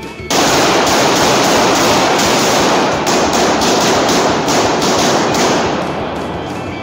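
Rapid strings of pistol shots from a Glock 19 9mm in an indoor range, so fast and echoing that they run together. They start abruptly about a third of a second in and ease off near the end.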